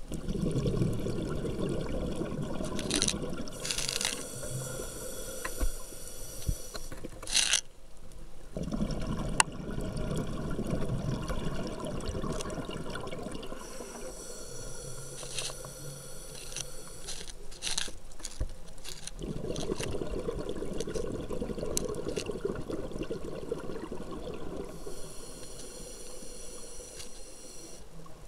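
Scuba diver breathing through a regulator: short hissing inhales alternate with long rushes of exhaled bubbles, about three breaths in all.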